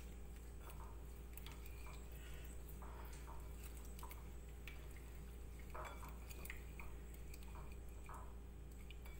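A hand mixing a wet spice-and-water marinade in a plate: faint soft squelching and scattered small clicks against the plate, over a steady low hum.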